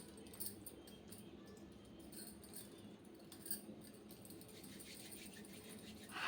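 Quiet room with a faint steady hum and a few small clicks, ending in a short breathy rush of air.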